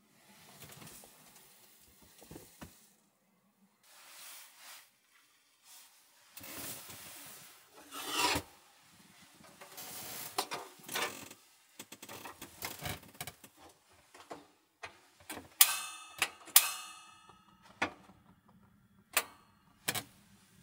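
Handling noises as a small portable heater is picked up, turned over and set down on a wooden table: rustling and scraping, then a cluster of sharp clicks and clatters with a brief metallic ring about two-thirds through, and a few single sharp clicks near the end.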